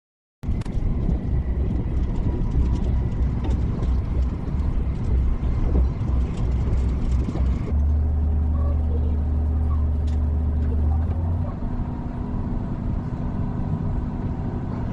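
Loud, steady running rumble of a vehicle, with faint steady tones and occasional clicks. About 8 s in, the higher hiss drops away and a strong low hum holds for a few seconds before easing off.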